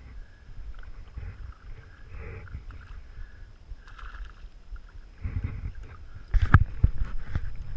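Shallow sea water sloshing and splashing as a hooked fish is drawn in close on a fly line, with a few sharp knocks, the loudest about six and a half seconds in.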